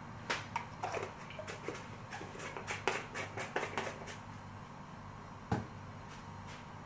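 Light kitchen handling sounds: a run of small, irregular clicks and taps over the first four seconds, then one louder knock about five and a half seconds in, over a faint steady low hum.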